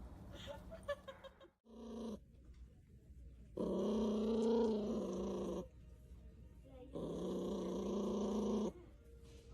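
A dog vocalizing in long drawn-out pitched calls, two of about two seconds each with a pause between, the first rising and falling in pitch.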